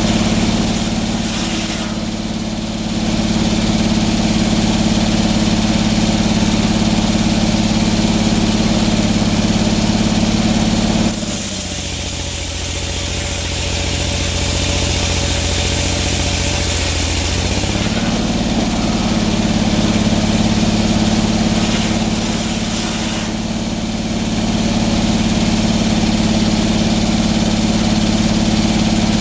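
Sawmill engine running steadily. About eleven seconds in its pitch drops suddenly and stays lower for several seconds, then comes back up to its earlier speed.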